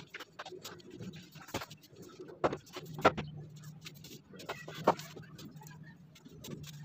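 Wooden knocks and clatter as the slatted wooden top is lifted off an old wooden crib and its rails are handled: a handful of sharp knocks, the loudest about three seconds in and another near five seconds. A low steady hum sits underneath from about the middle on.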